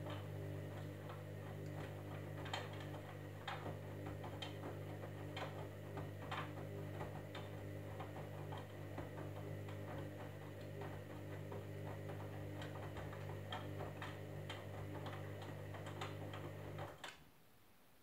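Candy Grand'O Vita front-loading washing machine tumbling its wet load during the wash: the drum motor hums steadily, with light irregular clicks throughout. Near the end the motor stops as the drum pauses between turns.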